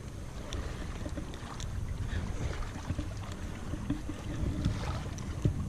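Steady low wind rumble on the body-worn camera's microphone, with a few faint clicks and handling noises as needle-nose pliers work a hook out of a small fish's mouth.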